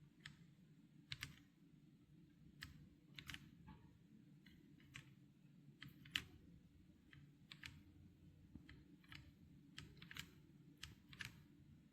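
Faint, irregular keystrokes on a RK Royal Kludge M75 mechanical keyboard with red linear switches, one or two sharp clicks a second, typed unevenly.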